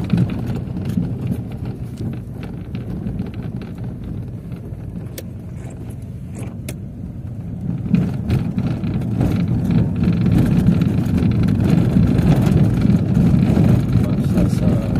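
Car driving on a dirt road, heard from inside the cabin: a steady low rumble of engine and tyres with light clicks and rattles, growing louder about eight seconds in.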